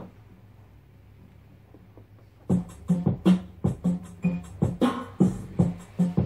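Stylus touching down on a 7-inch single on a Wifona P207 record player with a click, a couple of seconds of faint groove run-in noise, then the record's music starts about two and a half seconds in: evenly spaced plucked notes, roughly three a second.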